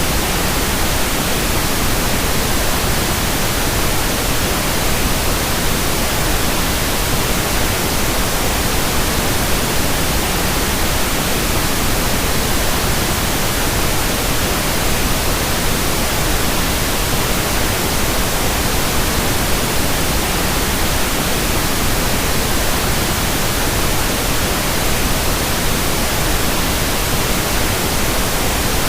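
Steady synthetic tinnitus-masking noise: an even, unchanging hiss spread across all pitches from deep to very high.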